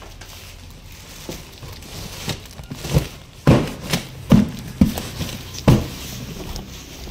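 Cardboard boxes being handled and shifted inside a carton: rustling, then about half a dozen knocks and thumps starting about three seconds in.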